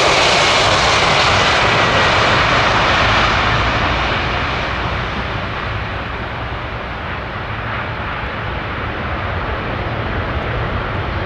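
Jet airliner's engines, loud at first and then fading over a few seconds as the aircraft moves away. The high hiss dies off first, leaving a lower steady rumble.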